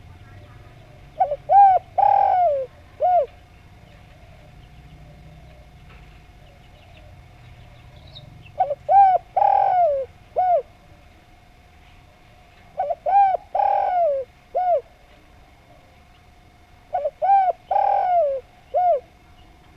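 Spotted dove (derkuku) cooing its song four times, about every four seconds. Each phrase is two quick coos, a longer drawn-out coo that falls in pitch, and a short closing coo.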